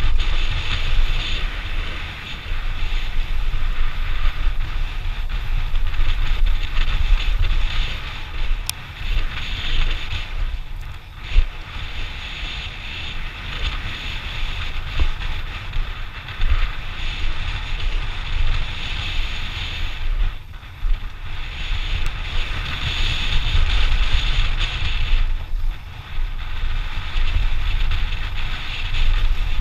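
Wind buffeting the microphone of a camera on a mountain biker riding fast down a dirt trail, with the hiss of tyres on the packed dirt. The rush is steady and eases briefly a few times.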